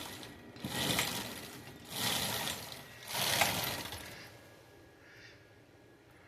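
Welding arc crackling in three short bursts of about a second each, the way short beads or tack welds are laid.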